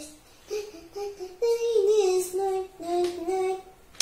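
A young girl singing to herself in three short phrases of held notes that slide up and down in pitch.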